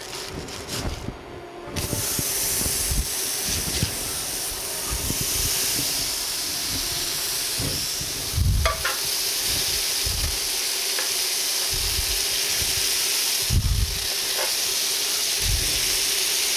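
Raw ground-beef burger patties sizzling in a hot nonstick skillet. The sizzle starts about two seconds in as the patties go into the pan and holds steady, with a few knocks of handling.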